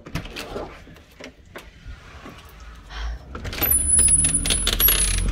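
Door knob and latch clicking and rattling as a door is opened. About three and a half seconds in, a louder low rumble from outdoors sets in, with a thin high tone over it.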